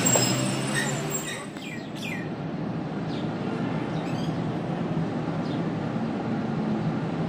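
Birds chirping in short falling calls, repeated every second or two, over the steady low rumble of a passenger train pulling slowly out of a station.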